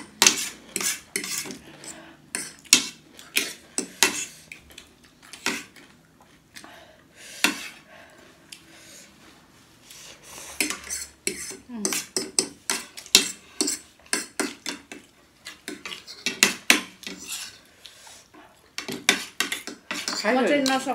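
Metal fork and spoon clinking and scraping against ceramic plates while noodles are twirled and scooped up. Irregular sharp clinks come in clusters, with a couple of short lulls.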